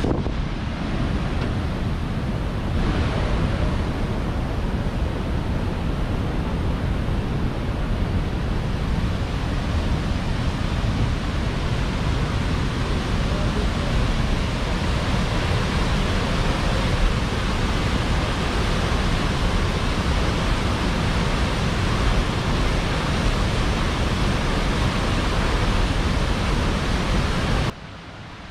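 Steady rushing of a fast mountain creek, an even wash of white water with no let-up, cutting off abruptly near the end.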